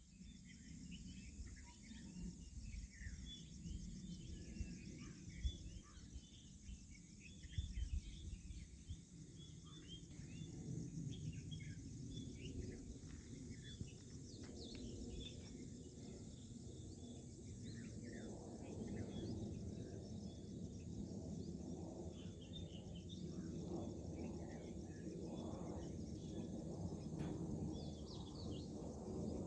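Many short bird chirps and calls over a steady high insect drone, outdoors at dusk. A low rumble runs underneath and grows louder in the second half, with a couple of soft thumps about five and eight seconds in.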